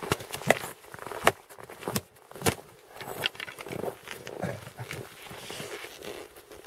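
Irregular crunching steps and sharp knocks on packed snow and ice, with a few loud strokes in the first few seconds and fewer after.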